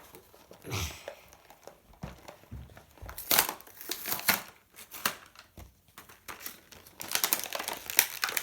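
Packaging of a Lock Star toy being crinkled and torn open by hand, in irregular bursts of rustling that are loudest about three seconds in and again near the end.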